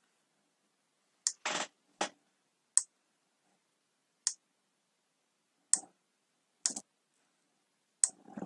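Irregular single clicks of a computer mouse, about eight, spread a half second to a second and a half apart.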